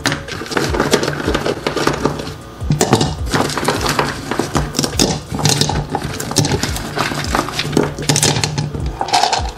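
Rough lapis lazuli stones clattering and knocking as they are picked out of a plastic tray and dropped one by one into a rock tumbler barrel, many uneven knocks in a row. A steady low hum runs underneath.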